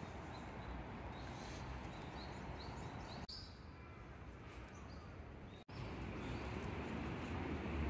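Faint outdoor ambience: a steady background hiss and rumble with small birds chirping now and then. The sound cuts out for an instant twice.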